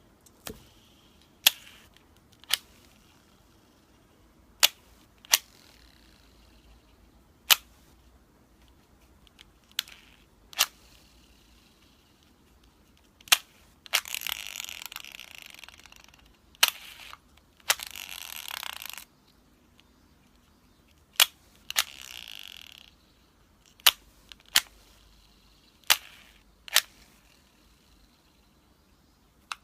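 Abu Garcia Ambassadeur Mag I baitcasting reel being worked by hand: sharp clicks every second or two, and three rasping whirs of one to two seconds each around the middle. The reel is making an abnormal noise.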